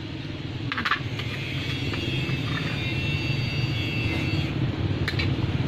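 A motor vehicle's engine rumbles steadily and grows louder. Two short light clicks, about a second in and near the end, come from a metal spoon knocking against a clay mortar.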